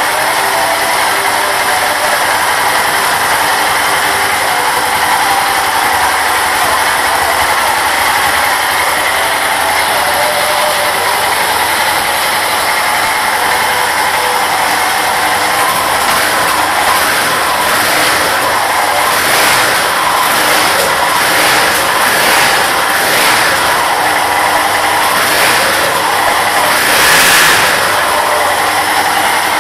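Yamaha XT660R's single-cylinder four-stroke engine running through its stock exhaust, idling with a mechanical chatter. In the second half it is given a series of short throttle blips, the largest near the end.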